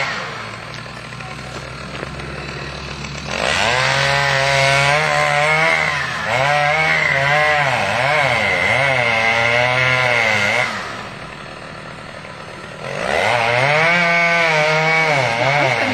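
Freshly rebuilt Stihl 045 AV Super two-stroke chainsaw. It idles, then about three seconds in runs up to full throttle and cuts, its pitch dipping and recovering under load. It drops back to idle near eleven seconds and runs up and cuts again from about thirteen seconds.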